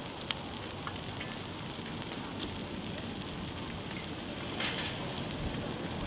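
Grass and brush fire crackling: a steady hiss of burning vegetation full of small pops, with one sharper pop near the start.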